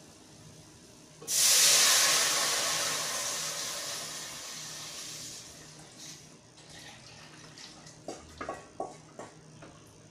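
Water poured into a hot stainless pot of browned roux: a sudden loud hiss about a second in that dies away over several seconds. A few light knocks of the stirring spoon near the end.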